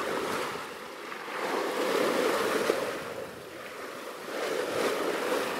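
Sea water rushing and splashing past the hull of a wooden outrigger sailing pirogue under way, with wind. The rush swells twice, about two seconds in and again near the end.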